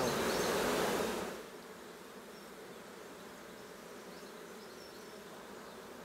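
Honeybees buzzing in a steady hum around a brood frame lifted from an open hive, louder for about the first second.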